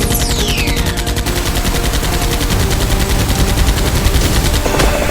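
Rapid, continuous machine-gun fire, many shots a second, added as a sound effect over a blaster fight. A high whistle falls in pitch through the first second.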